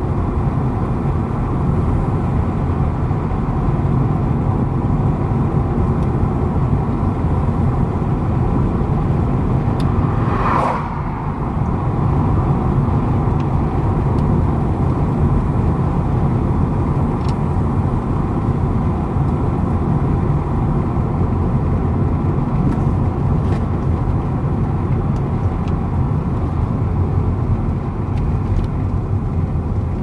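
Car driving on a tarmac road, heard from inside the cabin: a steady rumble of engine and tyre noise. About ten seconds in there is one short, higher sound, followed by a brief drop in loudness.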